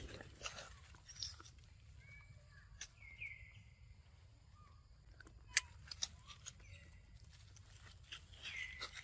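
Young macaques giving several short, high squeaky calls that drop in pitch and then level off, the clearest about three seconds in and near the end. Scattered sharp clicks and rustles come in between, the loudest a little past halfway.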